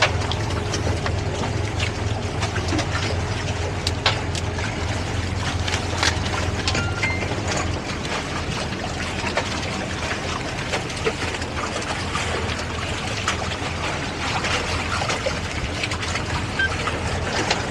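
Towboat's engines running steadily while side-towing a boat lashed alongside, with water rushing and splashing between the hulls and wind across the microphone. The low engine drone eases off about eight seconds in.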